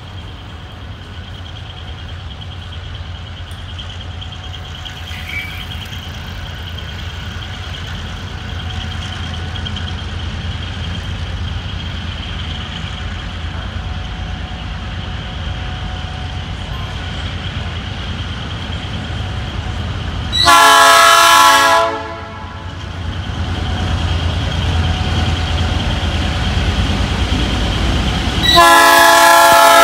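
Diesel-electric freight locomotive approaching with a low engine rumble that slowly grows louder. It sounds its multi-tone air horn twice: one blast of about a second and a half about 21 seconds in, and a second loud blast near the end.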